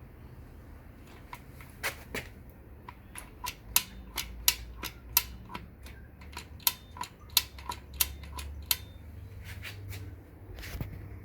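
A run of short, sharp knocks, about two a second and unevenly spaced, each with a faint ring, over a low steady hum.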